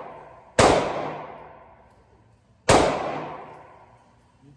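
Two pistol shots from a Glock 23, about two seconds apart, each cracking sharply and then ringing out and fading over a second or so.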